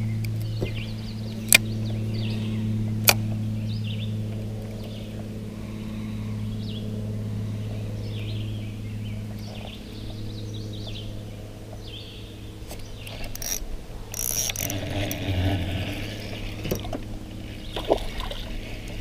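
A steady low hum throughout, with two sharp clicks in the first few seconds. Water splashes about three-quarters of the way through as a big bluegill is fought to the surface.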